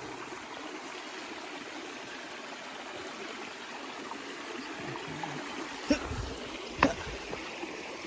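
A small valley stream running steadily, a continuous rush and trickle of water. Two short sharp knocks sound near the end, about a second apart.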